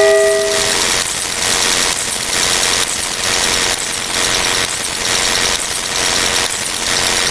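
Steady, noisy machine or engine-like running sound that swells and eases about once a second.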